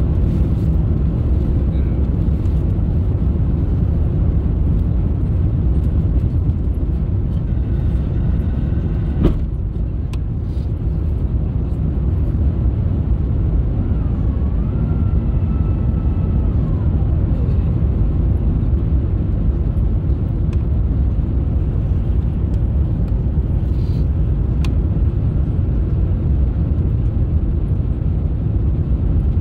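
Steady low rumble of cabin noise inside an Airbus A350-900 airliner during landing, with a single sharp click about nine seconds in and a faint whistling tone near the middle.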